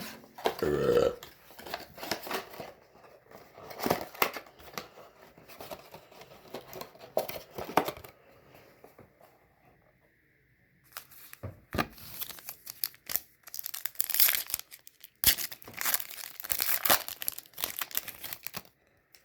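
Plastic trading-card pack wrappers being torn open and crinkled by hand, in two stretches of rustling and tearing with a quiet pause of a few seconds midway.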